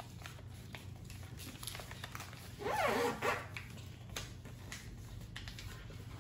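Sheets of paper being folded and creased on a tabletop: faint rustles and small crisp clicks as fingers press the folds. About three seconds in, a brief, louder sound slides up and down in pitch.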